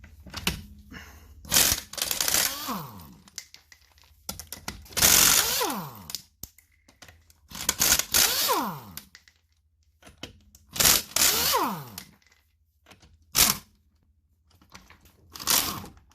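Power impact wrench spinning off the wheel's lug nuts: about six separate bursts of a second or so, each hammering and then winding down in pitch as the trigger is let go.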